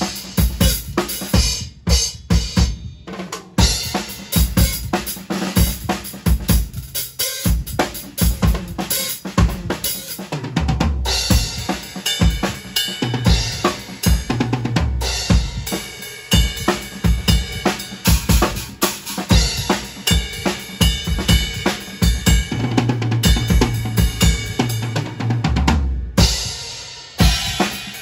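Drum kit playing, with bass drum, snare and cymbals in a continuous run of hits.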